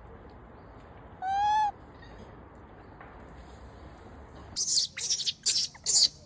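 A single clear, pitched coo call from a macaque, about half a second long, a little over a second in. Near the end comes a run of loud, harsh, high-pitched screeches: an infant rhesus macaque crying in distress as its mother handles it.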